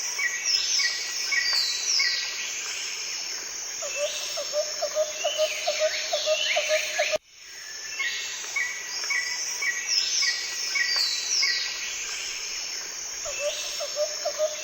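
Songbirds singing in chorus: many bright chirps and quick down-slurred notes, with a run of lower repeated notes at about four a second. The sound breaks off abruptly about halfway through and the same passage starts again, as a looped nature recording.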